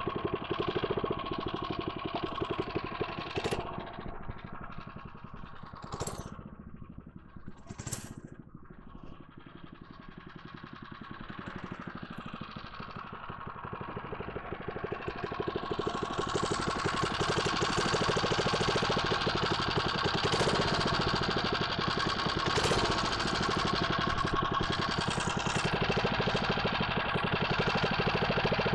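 Small 79cc single-cylinder mini bike engine running. Its sound drops low for a few seconds, then builds again and holds steady and louder for the second half.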